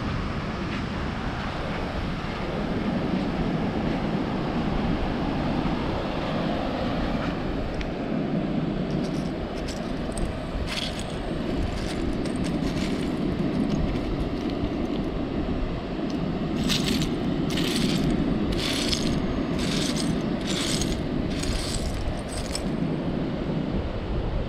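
Surf and wind noise on the microphone, with footsteps over shell-strewn sand: a few scattered clicks near the middle, then a row of about seven evenly spaced steps in the second half.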